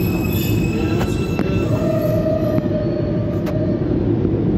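R160 subway train braking to a stop at an underground platform: a steady rumble of wheels on rail with a steady whine. A lower tone holds for about two seconds as the train slows to a halt.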